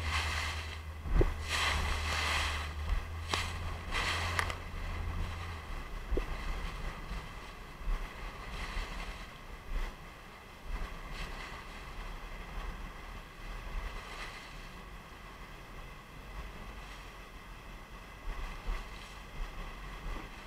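Rushing, churning river water below a large waterfall, with wind buffeting the microphone in gusts during the first few seconds. A boat's motor drones low under it until about six seconds in, then stops.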